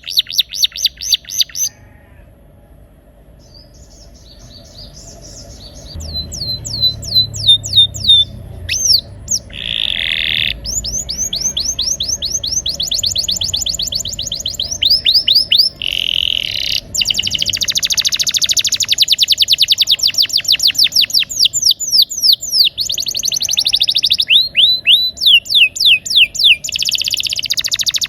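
Domestic canary singing a loud rolling song: fast trills of rapidly repeated falling notes. After a short lull about two seconds in, the song builds back into long unbroken rolls.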